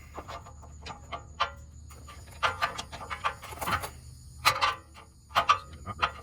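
Irregular sharp clicks and metallic taps of hand tools and parts being handled as a crankshaft position sensor is worked into place, in a few quick clusters.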